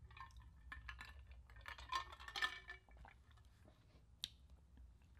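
A person drinking from an insulated water bottle: faint gulps and swallows with small clicks over the first three seconds, then a single sharp click about four seconds in.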